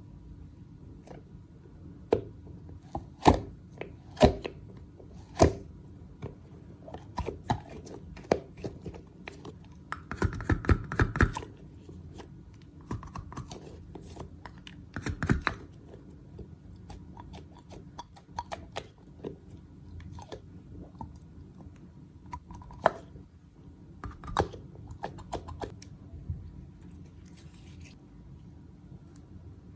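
Slime being squeezed and pressed by hand: scattered sharp crackles and sticky clicks, with a quick dense run of crackling about ten seconds in and another burst a few seconds later.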